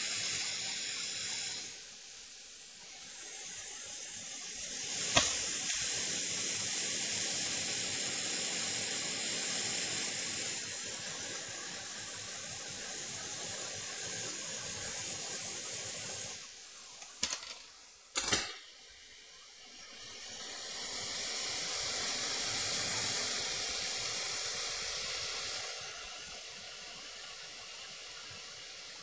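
Hot-air rework station blowing a steady hiss of air over a laptop motherboard while a component is soldered in place. The hiss stops briefly twice. A few sharp clicks come about five seconds in and again past the middle.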